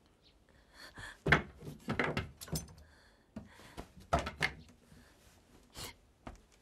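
Wooden cabinet doors knocking and thudding as they are opened and closed, several knocks with the loudest about a second in, with a woman's sniffling sobs between them.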